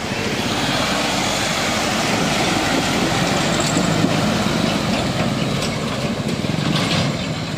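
Dump truck engine running as the truck drives through floodwater, with the steady rush and splash of water thrown up by its wheels.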